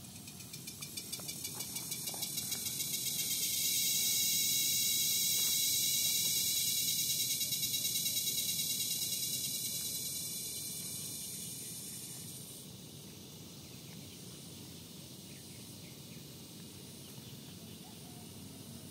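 Insects calling in the field: a high, rapidly pulsing chorus that swells to a peak over several seconds, then fades to a fainter steady buzz about two-thirds of the way through.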